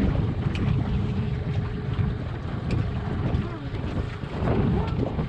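A small engine running steadily while travelling, with wind buffeting the microphone.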